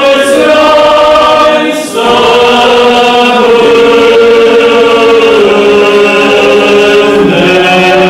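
A group of voices singing a slow chant-like hymn in unison, in long held notes with a short pause for breath about two seconds in. The melody steps down to lower notes later on.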